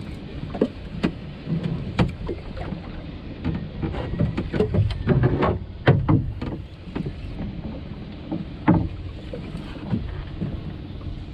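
Water slapping and splashing against the hull of a small outrigger boat, over a steady rush of wind and sea. Irregular knocks and slaps come thickest in the middle, with one sharp slap near the end.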